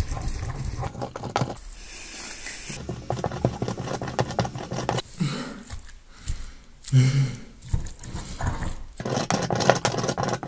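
Pestle pounding and grinding basil in a heavy dark stone mortar: rapid, uneven knocks and scraping of stone on stone through the wet leaves, easing off briefly twice.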